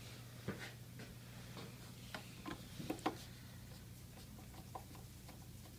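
Scattered small clicks and taps of a screwdriver and screw being worked into a plastic display panel, over a steady low hum. The sharpest click comes about three seconds in.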